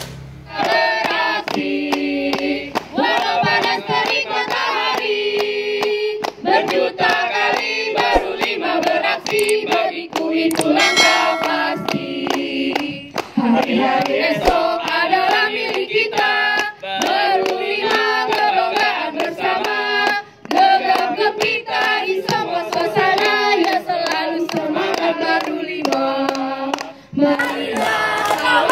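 A group of men and women singing a cheer chant together over a backing track of music, with repeated hand clapping.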